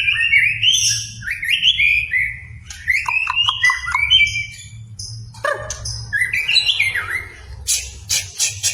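White-rumped shama (murai batu) singing loud, varied phrases of rising and falling whistled notes separated by short pauses, with a few harsh rasping notes near the end. A low steady hum runs underneath.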